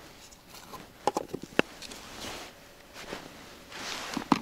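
Feeder-fishing tackle and groundbait handled by hand: a quick run of sharp clicks about a second in, some rustling, and two more clicks near the end.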